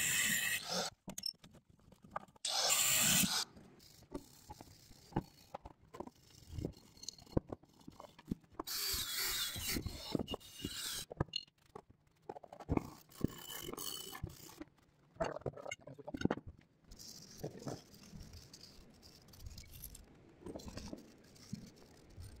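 Angle grinder cutting through seized rear leaf-spring U-bolts, heard as short stretches of steady noise; the first ends abruptly about a second in, and others follow near three and ten seconds. In between come scattered knocks, clinks and scrapes of the cut metal parts being handled.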